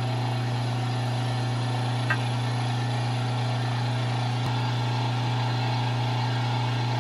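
Electric meat grinder motor running with a steady hum while regrinding a crumbled chicken sandwich, the mixture being pushed through and extruded from the grinding plate.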